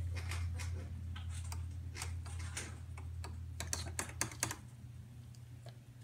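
Goffin's cockatoo's beak making an irregular run of small clicks and taps, thickest a little past halfway, over a steady low hum.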